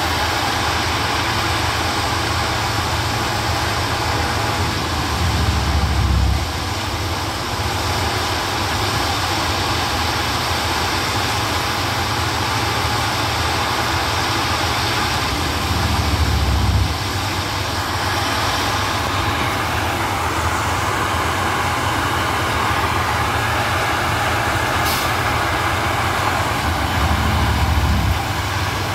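Plasser & Theurer 08-32 U ballast tamping machine working on new track. Its engine runs steadily, and about every eleven seconds a deeper, louder spell of a second or so comes as the tamping units work into the ballast.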